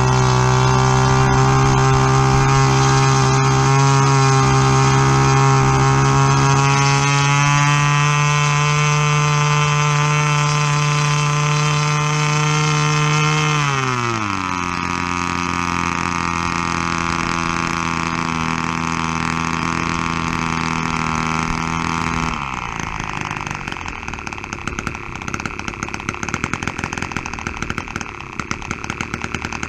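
New model airplane engine running in on a test stand: it runs at a steady high speed, is throttled back about halfway through with its pitch falling to a lower steady speed, and about three-quarters of the way through drops to a rough, uneven idle.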